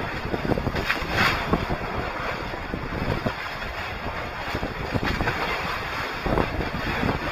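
Wind noise on the microphone over water rushing and splashing along the hulls of a small trimaran sailing through steep, choppy waves, with a louder surge about a second in.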